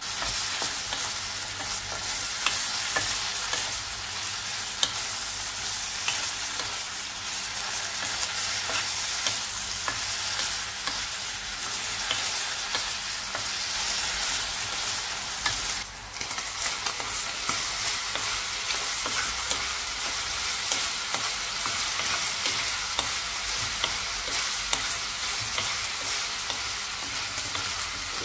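Diced pork sizzling in a nonstick frying pan as its soy-based sauce boils down, with a wooden spoon stirring and scraping the pieces around the pan in small clicks and scrapes.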